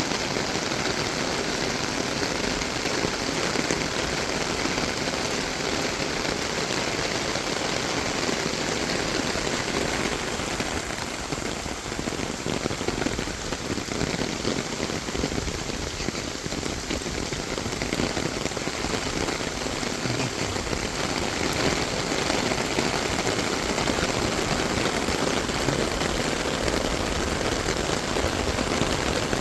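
Rain falling steadily, an even, unbroken patter of raindrops.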